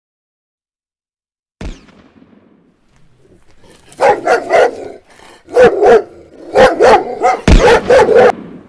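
A dog barking repeatedly, about ten sharp barks in quick runs, after a single short click about a second and a half in.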